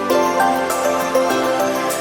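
Background music: a melodic instrumental track with sustained notes over a steady beat.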